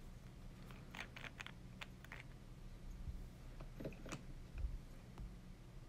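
Faint scattered clicks and light taps, a quick cluster about a second in and a few more around four seconds in, over a low steady hum.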